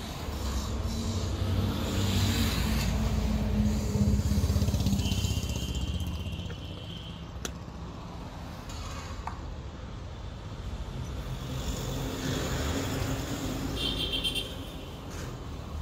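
Road vehicles rumbling past twice, swelling and fading, with a few sharp metallic clicks from starter-motor parts being handled on a workbench.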